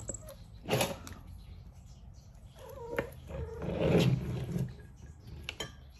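A pet cat vocalizing: a brief wavering call near three seconds in, then a longer low grumbling cry, the loudest sound, around four seconds, with a short sharp noise about a second in.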